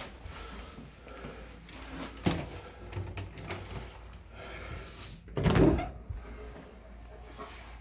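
Knocks and clunks of things being handled, a sharp one about two seconds in and a louder, longer thump about five and a half seconds in, over a low steady hum.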